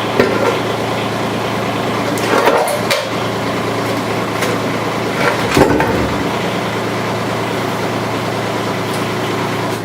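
Kubota mini excavator's diesel engine running steadily, with a couple of clunks about two and a half and five and a half seconds in as the bucket is lowered off the S30 quick coupler; the engine shuts off at the very end.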